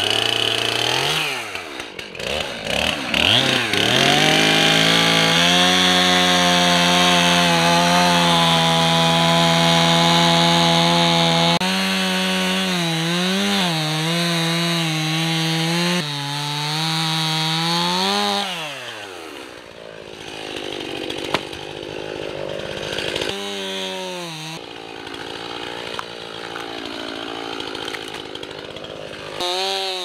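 A small engine running at high revs, holding a steady pitch for several seconds, then dropping and climbing in pitch a few times. It settles into a lower, rougher running in the last third.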